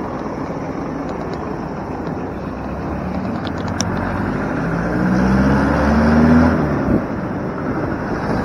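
Road and traffic noise from the open back of a moving small pickup truck: a steady rush of tyre and wind noise with engine sound underneath. About five seconds in, an engine rises in pitch and gets louder, then drops away about two seconds later.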